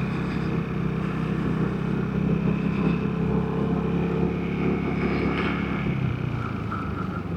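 Vespa GTS 300's single-cylinder four-stroke engine running steadily while riding; its engine note drops away about six seconds in.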